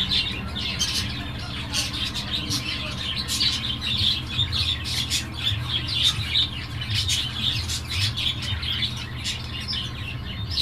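Many birds chirping and squawking at once, a dense stream of short high calls, over a steady low hum.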